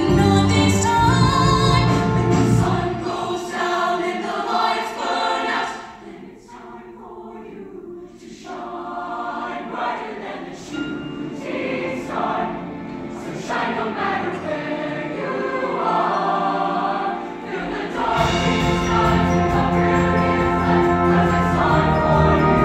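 Show choir singing a pop song with instrumental accompaniment. About three seconds in the bass and beat drop out for a sparser, quieter passage, and they come back in near the end.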